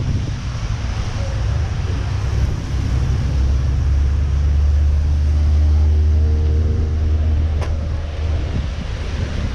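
Ford Mustang Boss 429's big-block V8 idling with a deep, steady rumble that swells in the middle.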